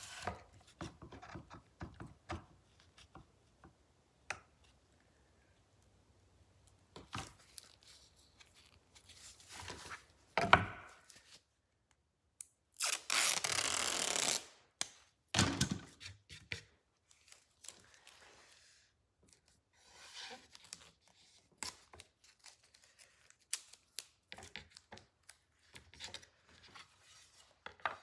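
Workbench handling sounds: a trigger bar clamp ratcheting shut with quick clicks, scattered knocks of tools and wood, and, loudest, a long rasping rip of masking tape being pulled off its roll about halfway through, followed by a shorter tear.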